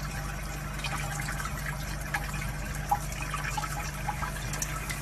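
Water trickling and splashing in small irregular ticks over a steady low hum.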